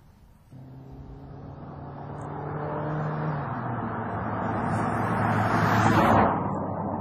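Mazda CX-3 driving up a road and passing close by: the engine note climbs, drops about halfway through, then the rush of tyres and air builds to a peak as the car goes past near the end and falls away.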